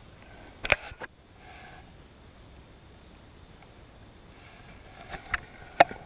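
Handling noise from holding a bluegill close to the camera: a few sharp clicks and taps, two close together about a second in and a quick cluster of three near the end, over a faint outdoor hiss.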